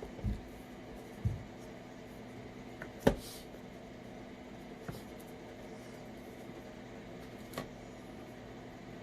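Handling sounds from unboxing a OnePlus 7T phone and its packaging. Two soft low thumps come in the first second and a half, then a sharp click about three seconds in, then a couple of faint clicks, over a steady low hum.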